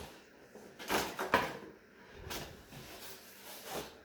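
Packaging being handled while unboxing an RC car: a few short scraping rustles of cardboard and plastic.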